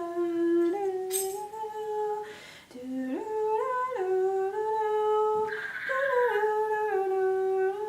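A man humming a tune unaccompanied in long held notes that step up and down in pitch, his voice stuffy from a head cold.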